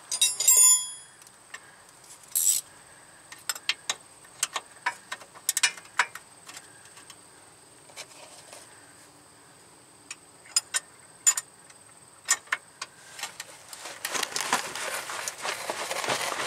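Metal socket wrench clinking and clicking against a rusty steering rack mounting bolt as it is fitted and worked, in scattered irregular clicks. A ringing clink comes just after the start, and a louder scraping, rattling stretch comes near the end.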